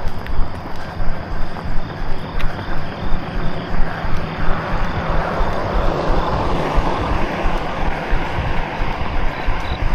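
A runner's footfalls jolt the handheld camera in a steady beat of about two and a half thumps a second. A vehicle's noise swells and fades in the middle as it passes.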